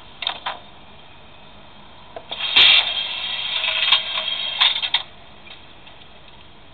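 LokSound digital sound decoder in a Liliput model of an SBB FLIRT train playing sound effects through its small speaker: two short tonal blips, then a louder electronic tone lasting about two and a half seconds with a few sharp clicks in it.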